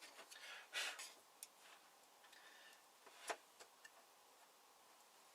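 Faint, scattered clicks and a short rustle of small objects being handled on a workbench, with one sharper click a little after three seconds.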